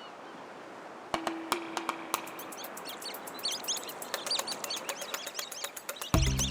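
A flock of small shorebirds calling: many short, high chirps overlapping, over a faint steady hiss. A brief low tone and a few sharp clicks come about a second in, and low music begins near the end.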